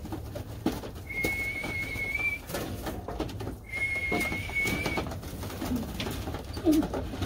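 Domestic pigeons in their loft with low cooing, over which come two steady high whistled notes, each a little over a second long.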